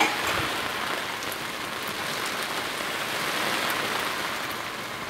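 Steady rain falling on the water: an even hiss, with a few sharper ticks of drops landing close by.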